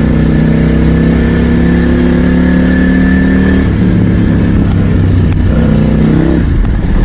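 Supermoto-style motorcycle engine running hard at high revs. The pitch holds steady, drops a little about three and a half seconds in, then climbs again near the end.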